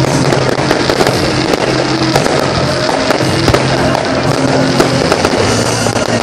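Fireworks display: a dense, continuous run of bursting shells and crackling, with many sharp pops, while music plays underneath.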